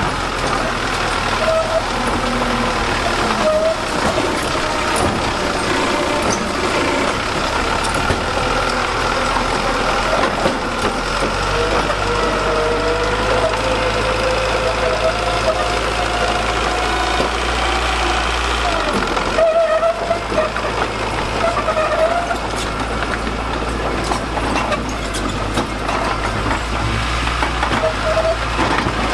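Diesel engine of heavy earthmoving machinery running continuously, its low drone getting stronger about eleven seconds in and dipping briefly near twenty seconds, with wavering higher-pitched tones over it.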